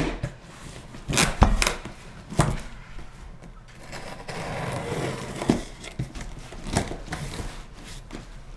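A cardboard shipping box being opened and handled by hand: a handful of sharp knocks and taps, with a stretch of rustling packing material around four to five seconds in.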